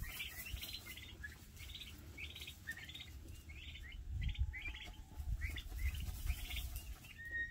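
Turkey poults peeping: a steady run of short, high chirps, about two a second.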